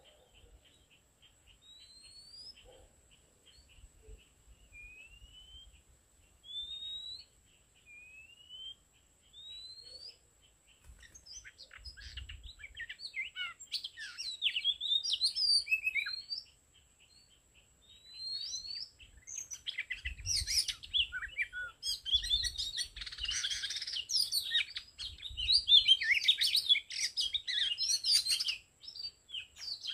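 Oriental magpie-robins singing: first a series of short rising whistles, one about every second and a half, then from about eleven seconds in a loud, rich, varied song of fast whistles and trills that runs almost to the end, with a short pause partway through.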